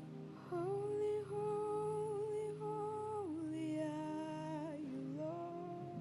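A voice humming long held notes: a steady note starting about half a second in, stepping down to a lower note past the middle, and rising again near the end, over soft sustained instrumental music.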